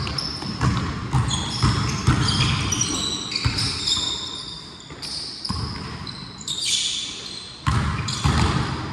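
Basketball game play: the ball bouncing on the court, with many short high sneaker squeaks and several thumps throughout.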